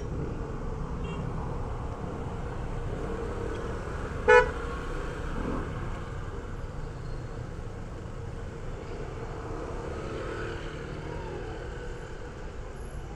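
A vehicle horn gives one short beep about four seconds in, over steady street traffic noise.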